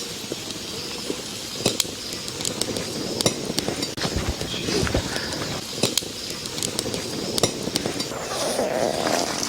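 Metal pots and utensils clinking and knocking in scattered, irregular strikes while cooking gear is handled.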